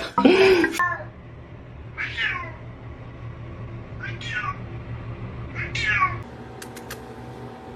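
A cat meowing: one loud call at the start, then three shorter meows about two seconds apart, each falling in pitch.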